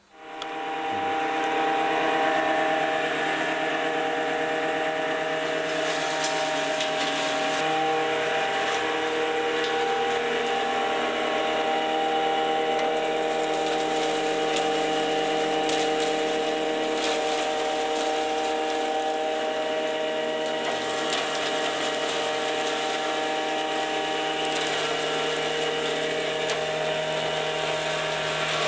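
Home-built hammer-mill wood-chip crusher starting up about half a second in and settling within two seconds into a steady run with a hum of several steady tones. Its belt-driven rotor with hammers on steel pins re-crushes wood chips fed through the hopper, and the chips rattle and crackle through it.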